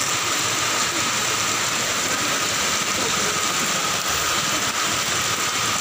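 Heavy rain pouring down: a steady, even hiss.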